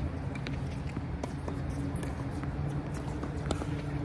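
Steady low hum with a few scattered light knocks, the sounds of tennis balls and footsteps on a hard court between points.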